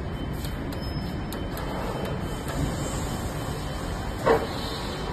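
Universal knee-type milling machine running with a steady mechanical hum, and a single short knock about four seconds in.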